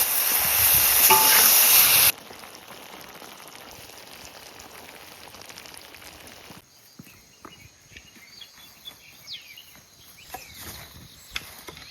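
Food sizzling loudly as it stir-fries in a hot pan, cut off abruptly about two seconds in. A faint steady hiss follows, then quiet with a few scattered clicks and one short high chirp.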